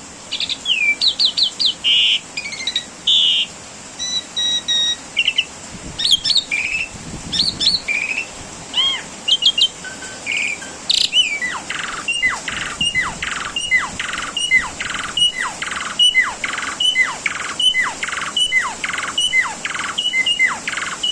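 Asian pied starling (jalak suren) in full song: a varied run of clear whistles and chattering notes, then from about halfway a repeated phrase of falling whistles mixed with harsh rasps, about two a second.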